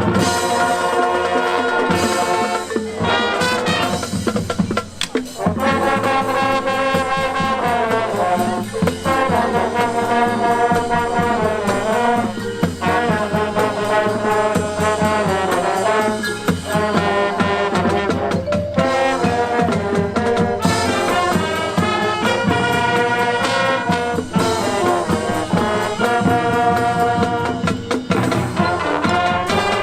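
Marching band playing its halftime show, the brass section (trombones and trumpets) carrying the melody over drums, with a brief drop near the five-second mark.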